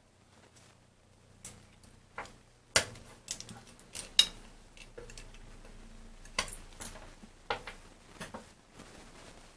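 Irregular clicks and small knocks of hard parts and tools being handled on a workbench, the sharpest clicks about three and four seconds in.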